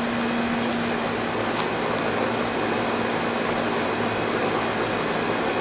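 Outdoor central air-conditioner condenser unit running: a steady whirring rush from its fan with a constant low hum underneath.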